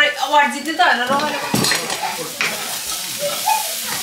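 Vegetables sizzling as they are stir-fried in a pan over high heat, with the utensil scraping and knocking against the pan a few times.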